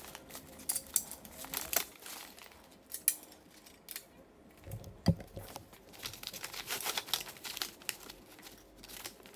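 Hands handling a camp cot: the fabric cot top rustling and crinkling, with scattered small clicks and knocks of the metal frame, middle leg and bolts being fitted together, and one heavier thump about five seconds in.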